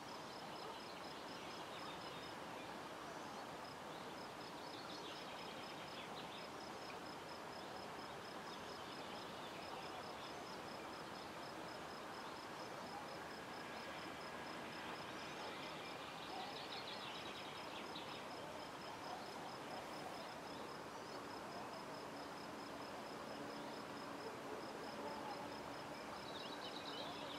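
Faint evening outdoor ambience. An insect chirps in a steady, fast, even pulse that breaks off briefly a few times, and birds give occasional short chirps and trills over a low hiss.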